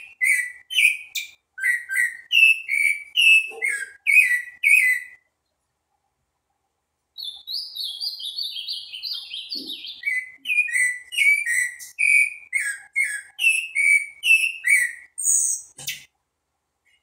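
Caged sabiá-gongá singing in runs of short, clear repeated notes. It pauses for about two seconds some five seconds in, then comes back with a faster, higher run before the lower notes return. A single sharp click sounds near the end.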